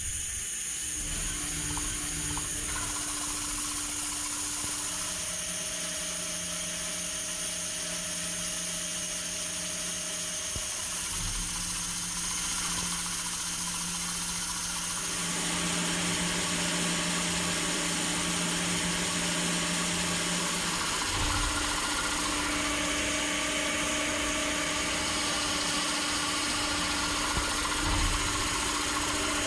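CNC machining center boring 6Al-4V titanium with a Kennametal ModBore KCU25 boring bar under flood coolant: a steady machine hum over a hiss of coolant spray, which grows a little louder about halfway through.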